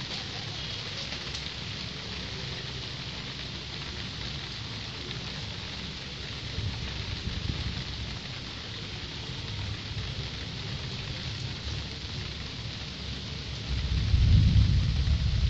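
Steady rain falling on wet ground and foliage, an even hiss. A low rumble swells briefly about halfway through and grows louder near the end.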